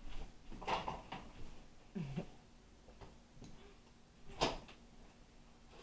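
A few light clicks and knocks of dishes and things being handled and set down on a kitchen counter, the sharpest knock about four and a half seconds in.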